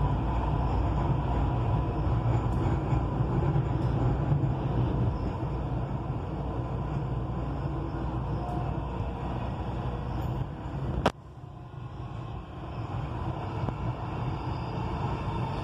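Dubai Metro train running along the elevated track, heard from inside the carriage as a steady rumble. About eleven seconds in there is one sharp click, after which the running noise is quieter.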